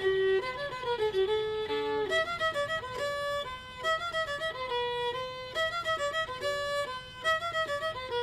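Background music: a fiddle tune played in quick, changing notes.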